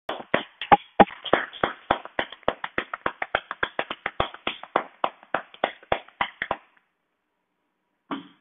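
Gloved hands striking a seated patient's upper back in quick rhythmic claps, about four a second: chest percussion over the upper lobes to loosen sticky phlegm. The claps stop after about six and a half seconds, and one more short knock comes near the end.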